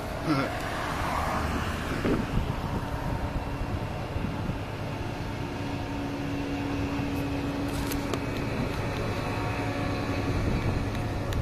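Diesel locomotive engine running with a steady hum as the locomotive approaches and passes beneath, growing a little louder near the end.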